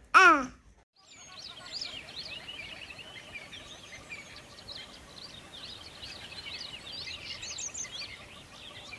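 A toddler's short call with a falling pitch, cut off abruptly, then after a brief gap a dense chorus of many small birds chirping.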